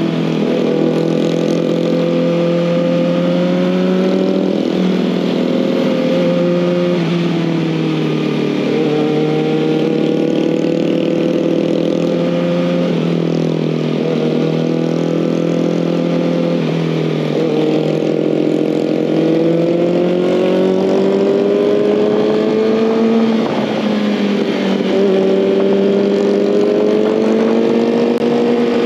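2019 Kawasaki ZX-6R's inline-four engine under way, its pitch climbing steadily and dropping back several times as the bike accelerates, shifts and rolls off.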